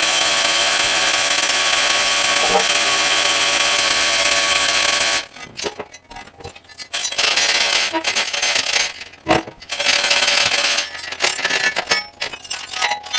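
A steady loud hiss cuts off abruptly about five seconds in. Then a chain hoist's chain rattles and clinks in bursts, with knocks as the heavy steel rerailing frog is lifted and set down on a steel table.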